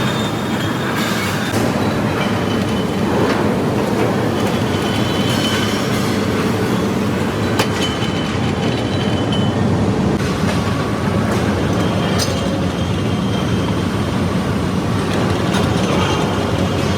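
Steel mill machinery running: a loud, steady rumble with faint high squeals and an occasional sharp metallic click.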